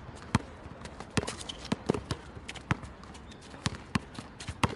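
Basketball dribbled hard on an outdoor hard court: a string of sharp bounces at an uneven pace, about ten in a few seconds.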